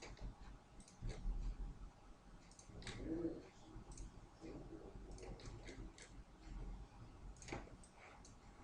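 Computer mouse and keyboard clicks, scattered and irregular, with a sharper click about seven and a half seconds in.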